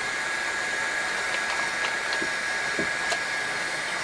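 Steady whirring of a small 3D printer's cooling fans, with a thin steady whine over it and a few faint clicks of handling near the bed.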